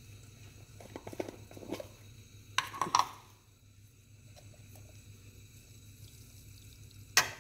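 A small spice container handled over a pot: a short rattle about a second in, two sharp clicks near three seconds and another sharp click near the end, over a low steady hum.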